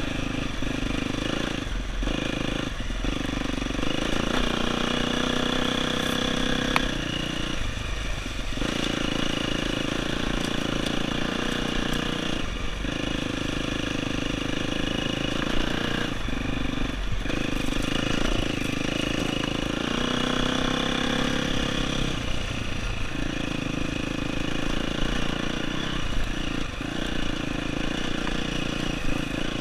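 Dirt bike engine running under way off-road, rising and falling with the throttle. The engine note drops briefly several times, once for about a second.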